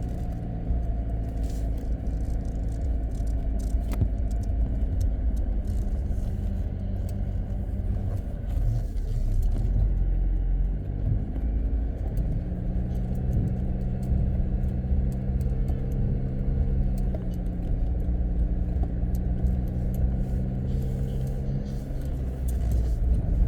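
Jeep Wrangler Rubicon driving, its engine running with a low rumble; about halfway through the engine note settles into a steady, clearer pitch.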